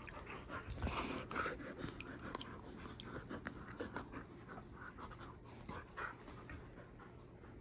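A German Shepherd and a younger dog play-fighting mouth to mouth: heavy panting with quick snaps and clicks of jaws and teeth. It is busiest in the first couple of seconds and eases off toward the end.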